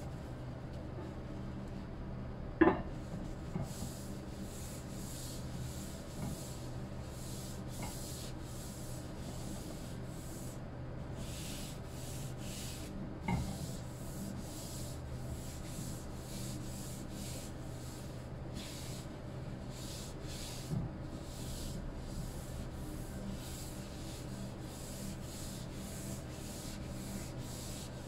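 Paper towel rubbing over a bamboo cutting board in repeated back-and-forth strokes, working oil into the wood. A few light knocks come through, the loudest about three seconds in, over a low steady hum.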